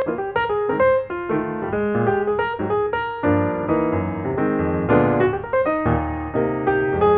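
Background piano music: a quick run of notes over chords.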